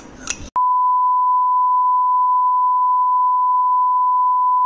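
TV colour-bars test tone: one steady, unwavering beep at a single pitch, starting about half a second in and held unbroken.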